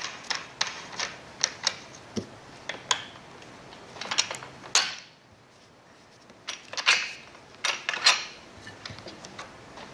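Irregular small clicks and light knocks of hard plastic and metal parts being handled as the knob-tightened rod clamp is worked off a grade rod's aluminium rail, with a quiet pause of about a second and a half midway.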